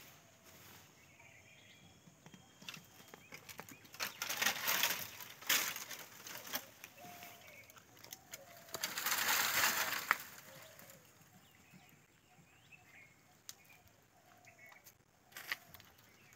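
Dry leaves and twigs rustling in two bursts, about four and nine seconds in, with a few sharp snaps between.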